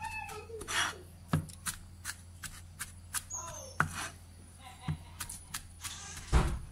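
Kitchen knife mincing shallots and garlic on a plastic cutting board: irregular sharp chopping strikes, with one heavier thump near the end.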